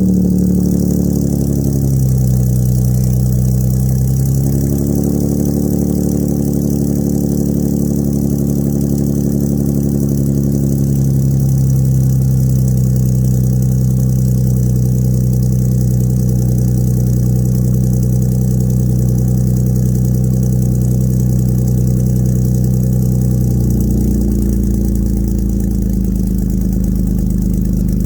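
2004 Ford Mustang's 3.8-litre V6 running through a custom stainless exhaust, heard from inside the cabin while driving: a steady low exhaust drone. Engine pitch dips about two seconds in, climbs back a couple of seconds later, holds level, then rises again near the end.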